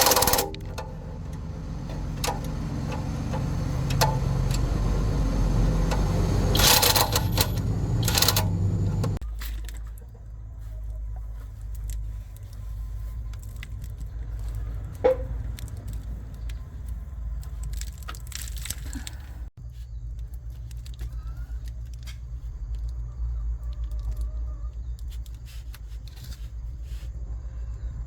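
Box truck's diesel engine running at raised revs with metallic rattles, then dropping about nine seconds in to a steady, lower idle.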